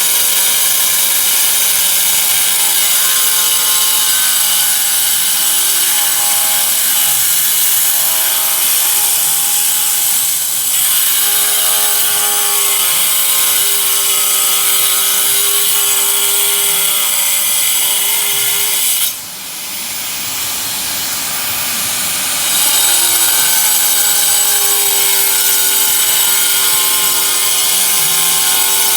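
Electric power tool motor running with a high whine, its pitch wavering as the tool works through the material. About two-thirds of the way through the whine cuts out, leaving a hiss for a few seconds, and then the motor winds back up to speed.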